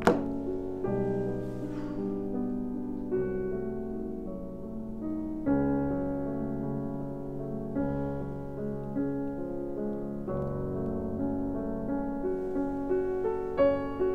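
Piano music playing slow, held chords and single notes that change every second or two. A short click comes right at the start.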